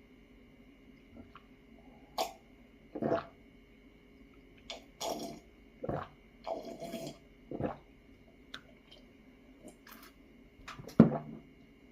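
Close-miked mouth sounds of a person eating: chewing and swallowing in about ten short, irregular wet bursts, over a faint steady hum.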